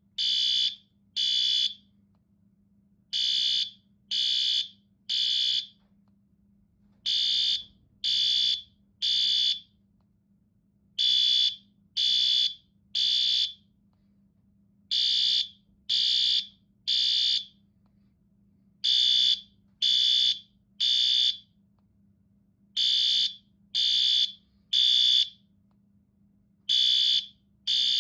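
Fire alarm sounding a high-pitched beep in groups of three with a pause between groups, repeating about every four seconds: the temporal-three evacuation signal.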